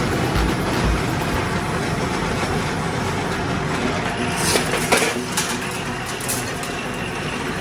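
Coil spring making machine running with a steady mechanical noise, with a few sharp clicks a little past halfway.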